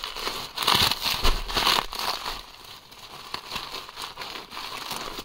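Plastic bubble wrap crinkling and crackling as it is handled and pulled at to get the package open. It is loudest in the first couple of seconds, then lighter.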